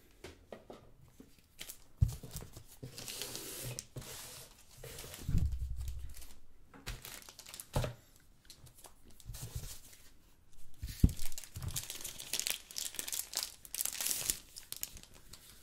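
Plastic packaging crinkling and tearing as a smartphone is taken out of its box, in stretches, with a few dull knocks from handling.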